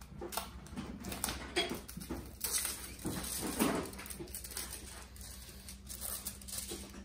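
Sheet of vinyl wrap film rustling and crinkling as it is flexed and handled, a run of irregular crackles that is loudest in the middle.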